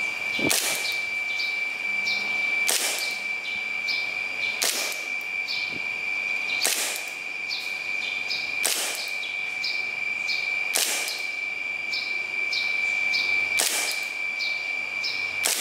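KJ Works KP-06 gas blowback airsoft pistol firing single shots about every two seconds, each a sharp crack as the gas vents and the slide cycles; about eight shots in all.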